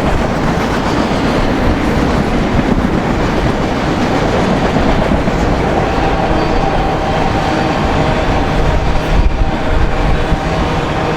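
BNSF autorack freight train rolling past, a steady loud rumble with wheels clacking over the rail joints. Faint steady ringing tones come in about halfway through.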